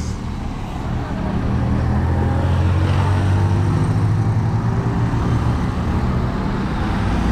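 Road traffic with a motor vehicle's engine running close by, growing louder about a second in and then holding steady.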